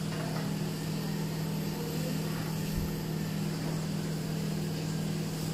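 A steady low hum with an even hiss underneath, unchanging throughout.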